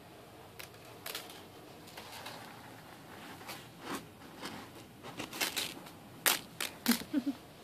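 A ferret digging and burrowing in a plastic bin of dry rice: the rice rustles and scatters in uneven scrapes, coming thicker and louder in the last couple of seconds.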